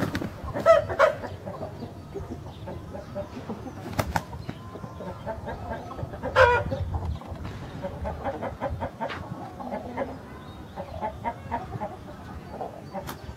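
A rooster and peafowl scuffling: wing flapping with loud squawks in the first second and again about six and a half seconds in, short clucking calls between, and a couple of sharp knocks.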